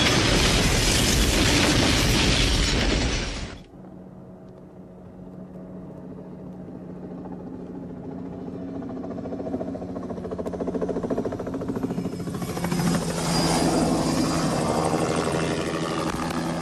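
A loud roar of a train rushing along the track cuts off abruptly about three and a half seconds in. A helicopter's rotor and engine drone follows, growing steadily louder as it approaches.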